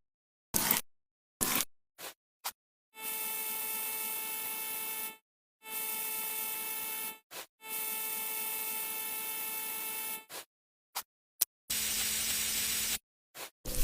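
Electric buzzing hum with hiss, sounding three times for about two seconds each with short gaps between, then once more with a lower buzz near the end; short clicks and blips come before it.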